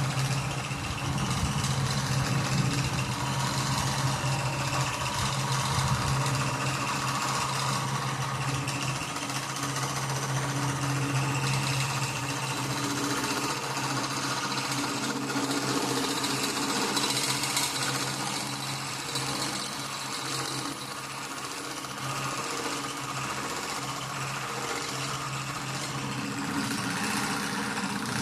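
Homemade bench drill press driven by a washing-machine motor, running with a steady low hum while the bit drills into steel plate, with a hiss that rises and falls as it cuts.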